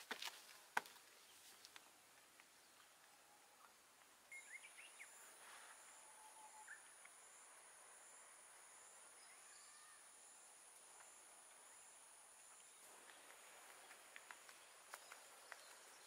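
Faint outdoor quiet: a few footsteps in the first second, then a steady high-pitched insect trill from about four seconds in that stops about thirteen seconds in, with faint footsteps again near the end.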